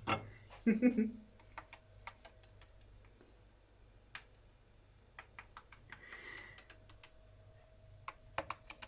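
Light, irregular clicks and taps, roughly a dozen spread through, consistent with a cockatiel's beak and feet tapping on glass. A short falling voice-like call is heard about a second in.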